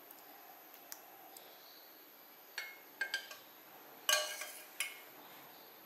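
A spoon clinking and tapping against a bowl while curd is scraped off it onto soaked poha: a few short clinks, the loudest about four seconds in.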